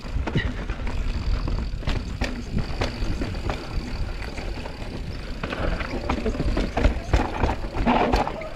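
Mountain bike descending a rough trail: wind buffets the action-camera microphone in a steady low rumble, with the rattle and knocks of the bike over roots and rocks throughout.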